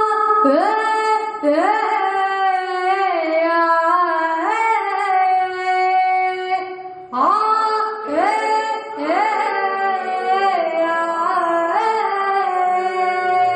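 A woman singing a Malayalam folk song (nadan pattu), solo voice with sliding, ornamented notes, in two long phrases with a short breath about seven seconds in.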